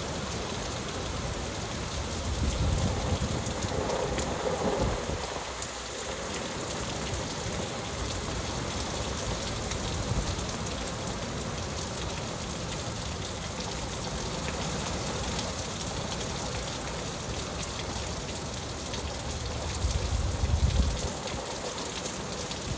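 Heavy, steady rain of Hurricane Nicole pouring down, with two louder low rumbles swelling through it, one a couple of seconds in and another near the end.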